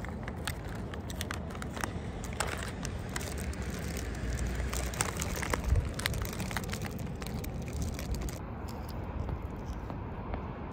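Plastic Sour Skittles candy pouch crinkling and crackling as it is handled and opened, with many sharp crackles that stop about eight seconds in. A steady low rumble runs underneath.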